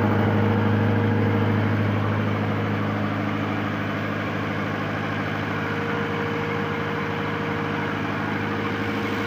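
Cummins diesel generator set running steadily at constant speed, an even low engine hum that eases slightly in loudness over the first few seconds.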